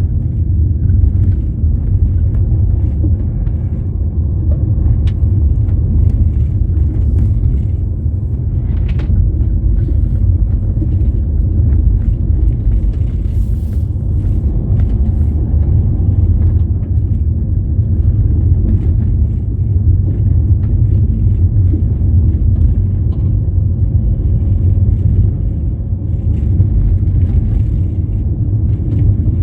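Steady low rumble of a vehicle driving, road and engine noise with no change in pace.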